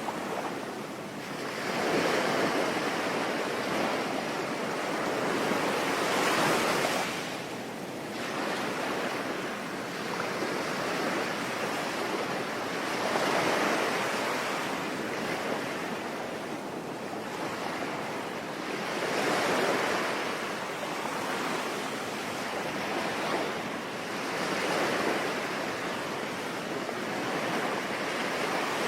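Sea waves breaking and washing in, rising and falling in slow surges about every five or six seconds, over a steady rain-like hiss that carries on between them.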